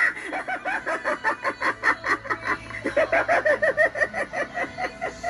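Animated Halloween clown prop playing a recorded cackling laugh: a fast run of short "ha-ha" bursts, about five a second, with a brief break a little over halfway through.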